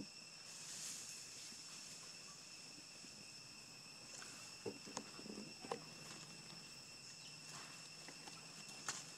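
Faint, steady high-pitched drone of insects in the undergrowth, with a few short crackles a little past the middle and again near the end.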